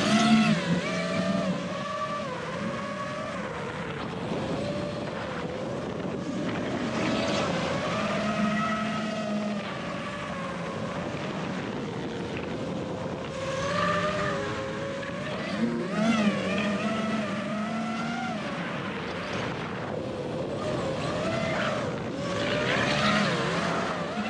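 FPV racing quadcopter's motors and props (T-Motor F60 Pro on 6S, Ethix S4 propellers) whining in flight, the pitch rising and falling constantly as the throttle changes, recorded by the GoPro mounted on the drone.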